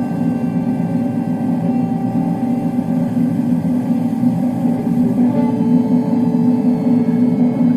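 Background music: held notes over a steady low drone, the held notes changing about five seconds in.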